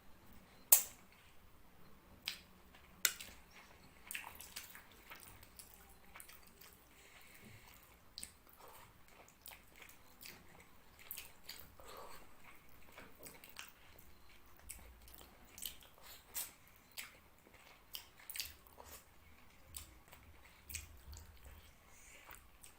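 Close-miked eating sounds from someone eating fish curry and rice by hand: wet chewing and squishing with irregular sharp mouth clicks and smacks, the loudest about a second in.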